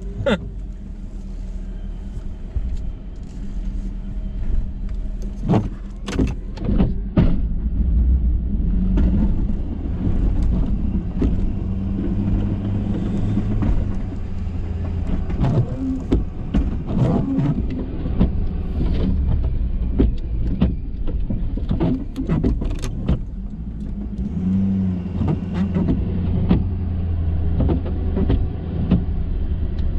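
Ford F-350 pickup truck running steadily, a low engine hum, with frequent short knocks and clatters over it.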